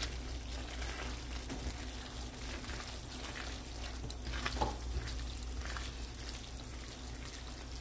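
Chicken Alfredo spaghetti sizzling in a frying pan as it is tossed with tongs, with a few soft clicks of the tongs against the pan, the clearest about four and a half seconds in.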